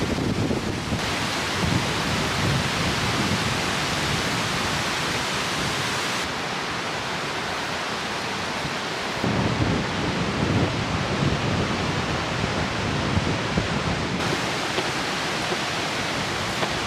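Strong wind buffeting the camera microphone in gusts over a steady rushing hiss, loud enough to swamp any speech. The sound shifts abruptly a few times.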